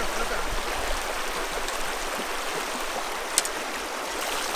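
Mountain river rushing over stones, a steady water noise, with one sharp click about three and a half seconds in.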